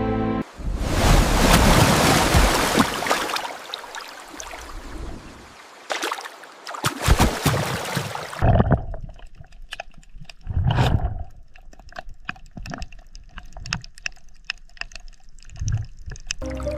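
Water splashing and sloshing: a loud rushing splash in the first few seconds, then scattered smaller splashes and drips.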